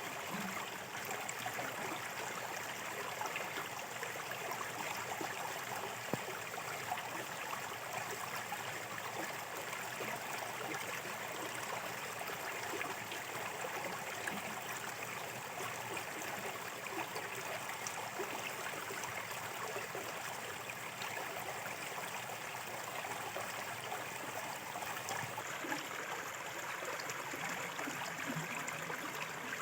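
A small river flowing steadily over stones, a continuous babbling with a few brief splashes.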